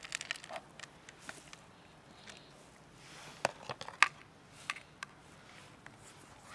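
Cats eating dry kibble from a plastic tub: scattered sharp crunches and clicks, with a few louder ones about three and a half to four seconds in.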